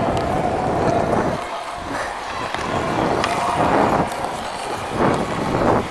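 Ice hockey skates scraping and carving the ice in a run of quick strides, a swish with each push, heard from a camera worn by the skater.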